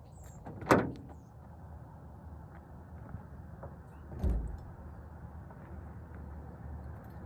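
Knocks from a van being packed up: a sharp bang about a second in, then a duller, deeper thump about four seconds in, over a faint steady low hum.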